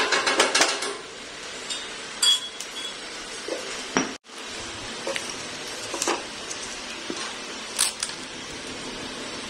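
Metal clinking and clattering, a quick run of clinks in the first second and single clinks after, over a steady background hiss.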